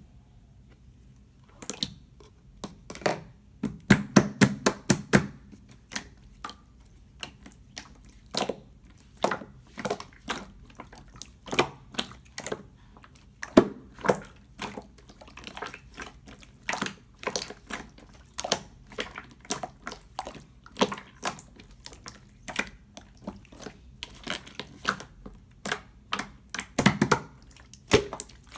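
Clear slime being worked by hand, making irregular wet clicks and pops that start about a second and a half in.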